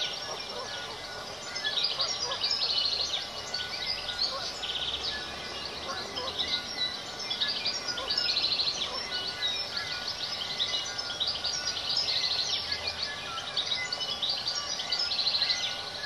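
New Zealand bellbirds singing: short, high, rapidly trilled phrases repeated every two to three seconds, with scattered lower chirps between them.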